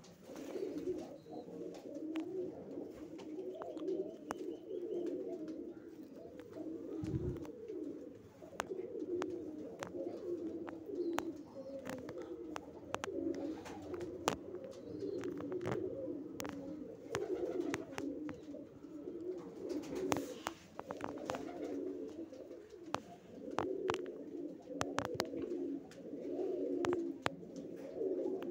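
Domestic pigeons cooing steadily and without a break, with scattered sharp clicks.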